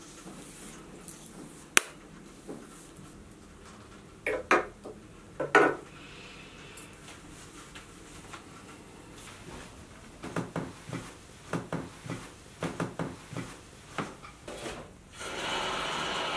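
Household handling sounds: a sharp click, two heavier knocks, then a run of light clatter like dishes and utensils being moved. Near the end a kitchen tap starts running steadily as a kettle is filled.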